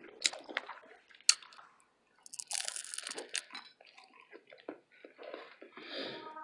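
Close-miked ASMR eating of a burrito: a few sharp wet mouth clicks in the first second and a half, then about a second of dense crunching and crackling, followed by softer chewing sounds.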